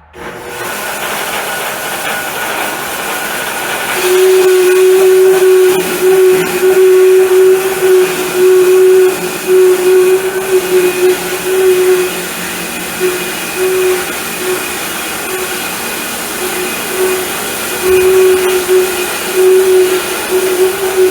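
Homemade sawmill running. About four seconds in it gets much louder, with a strong steady hum that comes and goes.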